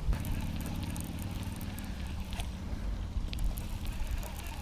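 Low wind rumble on the microphone, with a baitcasting reel being cranked in on a retrieve, a low steady whir over the first couple of seconds, and a few faint clicks.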